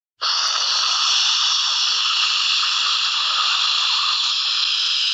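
A steady hiss, like static or escaping steam, that starts suddenly and holds an even level.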